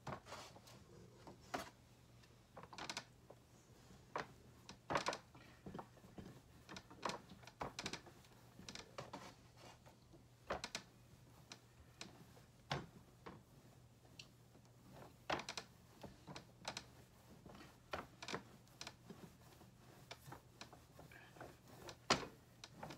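Rolling pin working a slab of clay on the counter, flattening it to an even thickness: irregular light knocks and clicks, a few a second at times.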